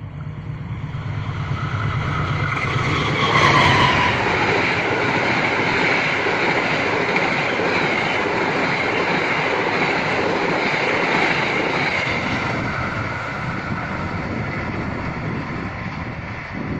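Passenger train passing close by. A low hum builds over the first few seconds, and the noise rises sharply about three and a half seconds in. A dense, steady rumble of wheels on rail follows for over ten seconds as the carriages go past, easing slightly near the end.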